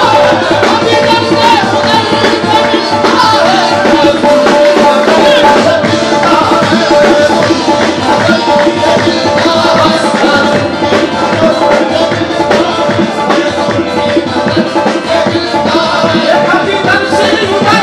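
Qawwali music: tabla drumming in a steady rhythm over a held harmonium note, with little or no singing.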